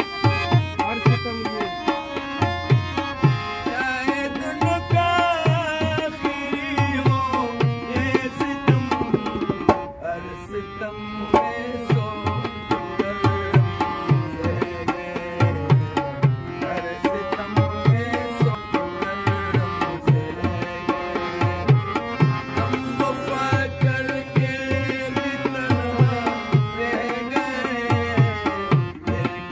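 Harmonium playing a melody over a steady rhythm of hand-drum strokes: Pashto folk music.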